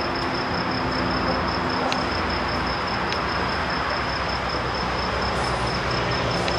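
Ambient noise of a small-sided football match in a covered hall: a steady hiss with a constant high whine, and a few faint sharp knocks about two and three seconds in.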